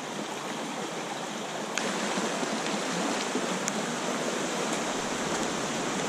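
Small rocky creek flowing steadily over riffles and little cascades, with two faint clicks partway through.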